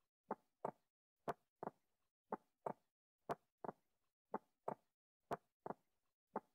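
Heartbeat heard through a stethoscope: paired lub-dub thumps, about one beat a second, with dead silence between.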